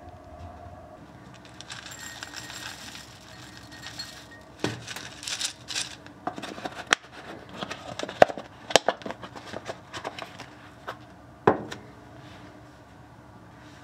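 Dry rolled oats shaken from a cardboard canister into a ceramic bowl: a soft rustle, then a run of sharp taps and clinks as the flakes and canister hit the bowl, ending with one louder knock near the end as the canister is set down.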